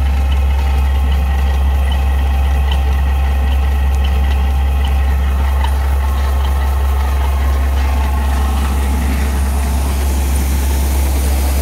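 Homemade seed cleaning and treating machine running steadily: its air blower and seed-treating auger give a constant low drone with steady whining tones above it as treated winter wheat seed flows out.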